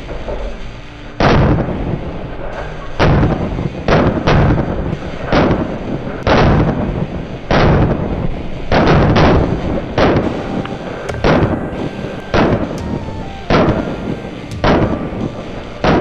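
A series of about a dozen gunshots, roughly one a second, fired into a refrigerator and heard from inside it as the rounds hit the food and bottles on its shelves. Each shot rings out briefly before the next.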